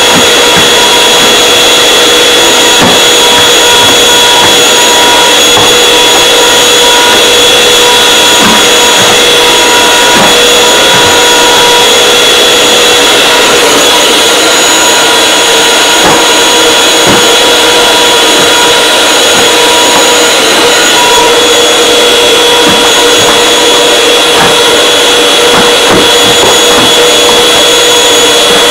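Canister vacuum cleaner running, loud and steady, with a constant high whine over the rush of air.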